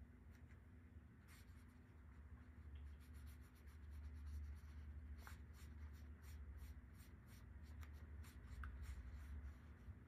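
Faint scratchy strokes of a watercolor paintbrush on paper, coming more often after the first few seconds, over a low steady hum.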